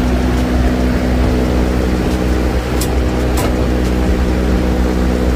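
An engine running steadily with an even low hum, and two light clicks about three seconds in.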